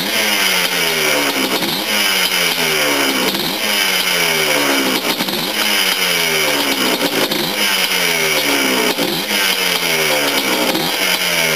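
Yamaha Blaster's air-cooled two-stroke single-cylinder engine running on its first break-in heat cycle. The throttle is blipped up and eased back roughly every two seconds so the engine speed keeps varying instead of idling, bringing the freshly rebuilt engine up to temperature.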